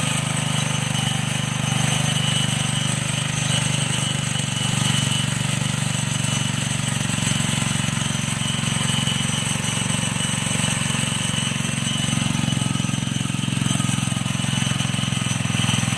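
Homemade feed pellet machine running steadily, its motor humming at a constant pitch.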